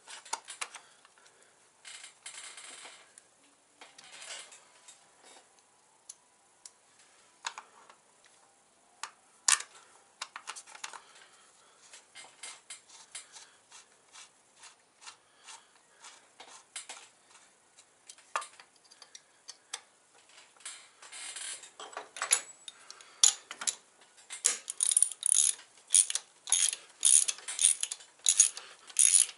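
Hand tools clicking and clinking against metal as the front sprocket cover bolts are turned in with an Allen key. Near the end a small socket ratchet clicks in quick repeated strokes, about two a second, as the bolts are tightened.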